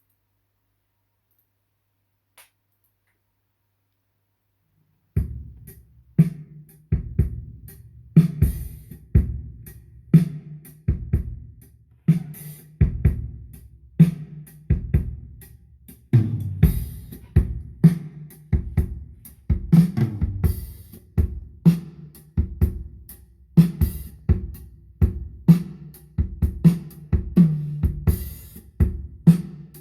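Near silence for about five seconds, then drum-kit music starts: a steady beat of kick drum, snare, hi-hat and cymbals, played back through an Onkyo Integra A-8250 integrated amplifier as a sound test.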